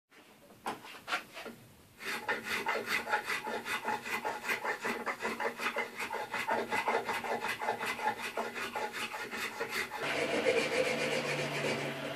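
Rasp filing a wooden hammer handle held in a vise: a few separate strokes at first, then a fast, even run of short strokes, about five a second. The sound gets fuller about ten seconds in.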